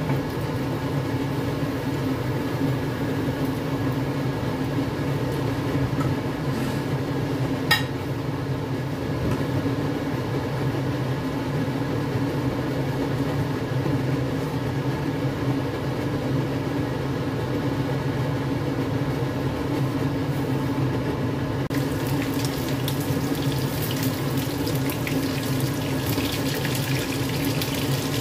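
A steady hum and hiss runs under a wok of hot oil on a gas burner, with one sharp click about eight seconds in. About 22 seconds in, a crackling sizzle starts as chicken pieces go into the hot oil to fry.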